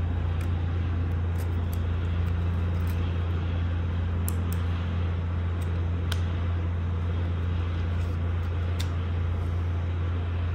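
A steady low hum over a constant background rush, with a few faint small clicks from a compact camera being handled as its battery and memory card compartment is worked.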